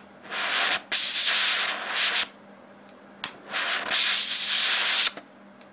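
Hydrogen–oxygen gas from an HHO torch hissing in three sharp-starting bursts, each a second or so long, as a lighter flame is held to the nozzle; the gas pressure is too high for the flame to catch and hold.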